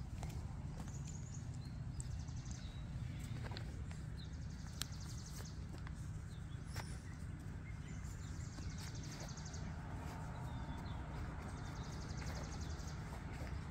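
Outdoor ambience: a steady low rumble with a high buzzing trill from a bird or insect that recurs every few seconds, and a few light clicks.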